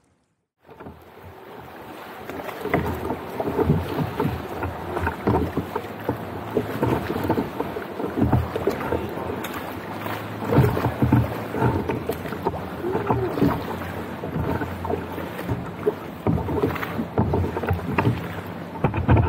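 Choppy bay water slapping and sloshing irregularly against a fishing kayak's hull, with wind buffeting the microphone. It comes in after a moment of silence about a second in.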